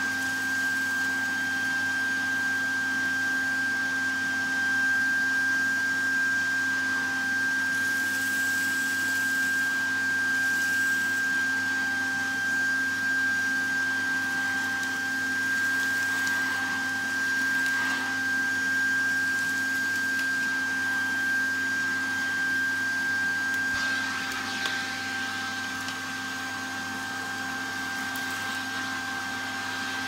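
Rotel U62.5 cylinder vacuum cleaner's 550-watt motor running steadily with a high whine while it sucks debris off carpet, with a few short rattles as bits go up the wand. It runs a little quieter in the last few seconds.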